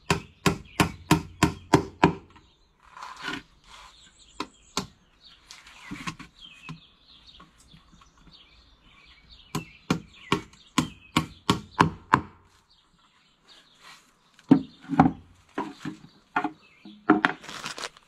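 Hammer driving nails into a wooden beehive box: quick runs of sharp taps, about three a second, one at the start and another about ten seconds in, with scattered blows between.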